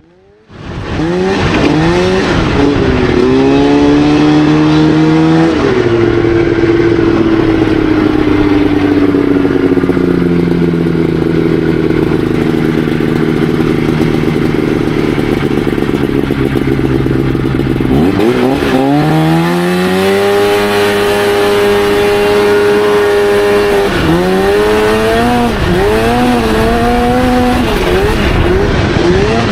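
Crosskart buggy's engine running hard under throttle, its pitch climbing and falling as it is driven through the turns. It cuts in suddenly at the start. About two-thirds of the way through the pitch drops low as it slows, then rises and wavers again.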